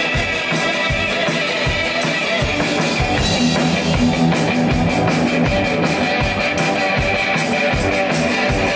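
A live rock band playing, with a drum kit keeping a steady beat under strummed hollow-body electric guitar.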